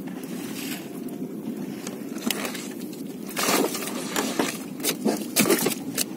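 Fishing boat's steady low rumble, with short rustling and scraping from a nylon net being pulled off stingrays on the deck; the loudest rustles come about three and a half and five and a half seconds in.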